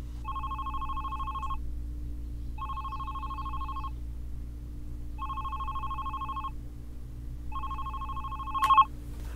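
Telephone ringing: four warbling rings, each about a second and a quarter long with about a second's pause between. The fourth ring stops short with a click near the end as the call is picked up.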